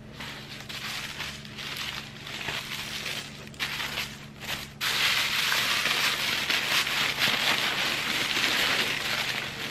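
Tissue paper and paperboard packaging being handled and unfolded: crinkling and rustling, with scattered crackles, getting louder and denser about five seconds in.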